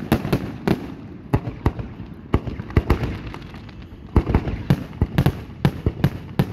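Aerial fireworks shells bursting in quick, irregular, overlapping bangs, thinning out for a couple of seconds and then coming thick and fast again about four seconds in.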